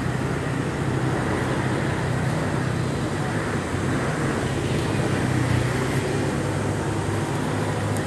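Steady low hum of a motor vehicle engine running, amid road traffic noise.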